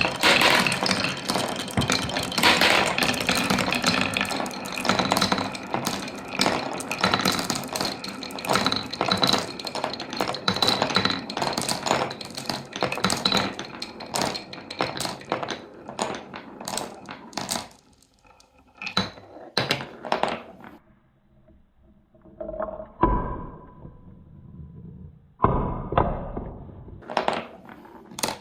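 Marbles rolling and clattering down a Cuboro wooden-block marble run, over stairs and a wave slope. The clatter is dense at first, thins to separate clicks, and ends with a few last knocks, one of them followed by a short ringing tone, as the last marbles finish.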